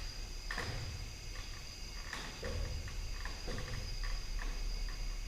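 Crickets chirping steadily in a high, even tone. A few short knocks and scuffs come through it as a ladder is climbed.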